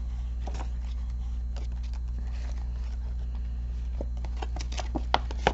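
Paper banknotes being counted out and slid into cash envelopes: soft scattered rustles and ticks, with two sharper clicks near the end, over a steady low hum.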